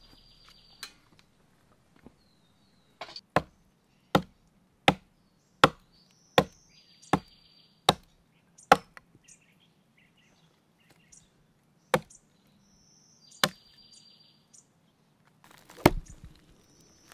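Gränsfors Bruks carpenter's axe chopping into a log: a steady run of about nine sharp strikes, roughly one every three-quarters of a second, then three more spaced-out blows.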